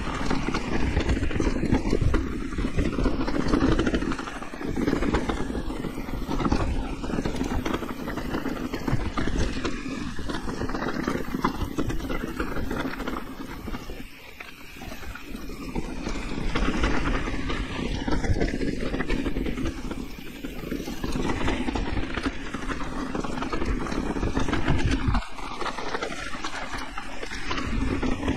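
Electric mountain bike ridden down a rough enduro trail: a continuous rumble of wind on the camera microphone with tyre noise and rattling over the trail surface. The rumble dips briefly midway and drops away sharply near the end.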